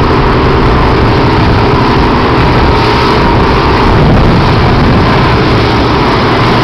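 Twin outboard motors running steadily at speed on a planing boat, under a constant rush of wind and churning wake water.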